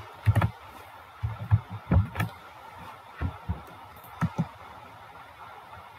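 Scattered soft clicks and low thumps from a computer mouse being clicked close to the microphone, about a dozen spread irregularly.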